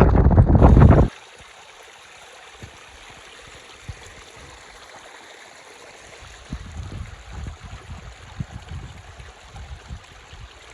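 Wind buffeting the microphone for about a second, then cutting to a mountain stream running steadily, with light gusts of wind on the microphone in the second half.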